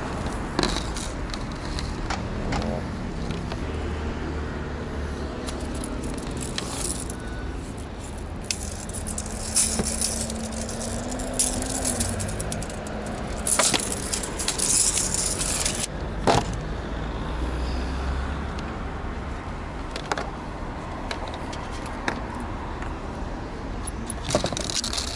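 Scattered clicks, rattles and scrapes of hand tools and coaxial antenna cable being handled, over a low rumble of vehicle traffic. An engine is heard passing about halfway through.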